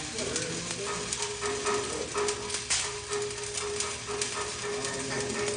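Electric arc welding: a continuous irregular crackle of many sharp pops, with a steady hum that comes in about a second in.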